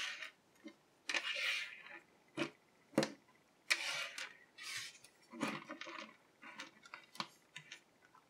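Plastic G.I. Joe action figures and small accessories being set down and slid on a tabletop: an irregular string of light taps, clicks and brushing scrapes, with one sharper click about three seconds in.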